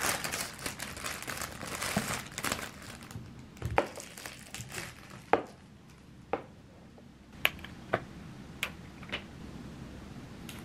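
Cellophane flower sleeve crinkling as a bunch of hydrangea is handled and unwrapped, then a series of sharp snips, about one a second, as scissors cut the hydrangea stem.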